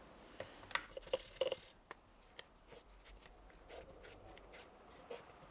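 Faint rubbing of a cloth over a glued-up wooden box, wiping off wet glue squeeze-out, with a few light clicks and knocks as the piece is handled.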